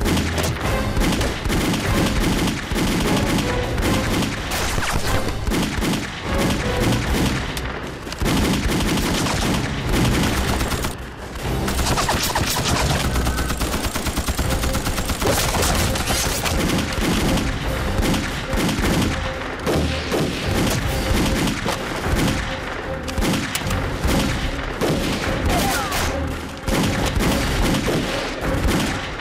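Sustained gunfire: rifles and machine guns firing in rapid, overlapping volleys, with a short lull about eleven seconds in.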